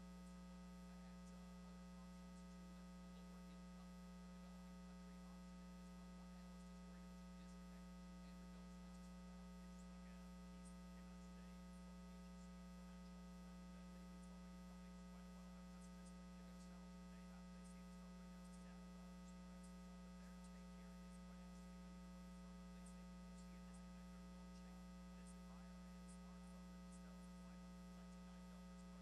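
Near silence: a steady electrical hum with faint crackle.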